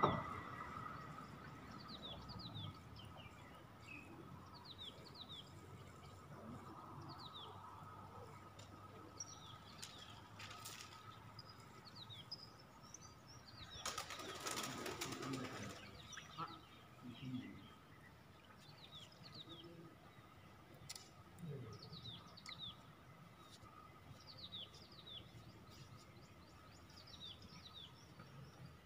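Small birds chirping faintly and repeatedly, each call a short falling note, over a faint steady high tone. About halfway through there is a brief rush of noise lasting a second or two.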